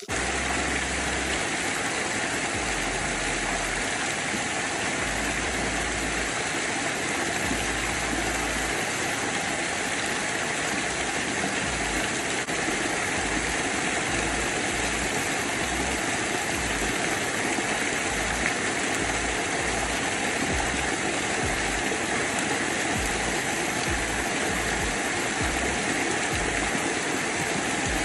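A waterfall pouring down close by, a steady rushing hiss of falling water, with irregular low thumps of spray or wind on the microphone.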